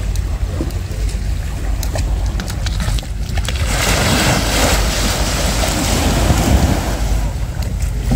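Small waves breaking and washing up onto the shore, with a louder wave surging in about four seconds in. Wind rumbles on the microphone underneath.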